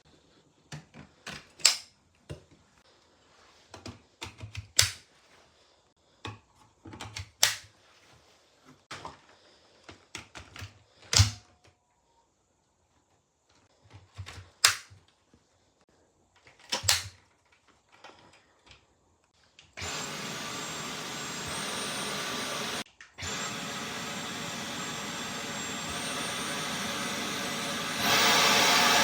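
Scattered sharp clicks and knocks of plastic parts being handled and fitted together for about twenty seconds, then a Dyson V12 Detect Slim cordless stick vacuum switches on and runs steadily. It cuts out for a moment, starts again, and runs louder near the end.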